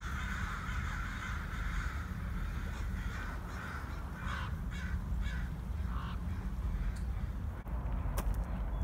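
A flock of crows cawing, many calls following one another and overlapping through the first six seconds, then fewer, with a couple of sharp clicks near the end. A steady low rumble runs underneath.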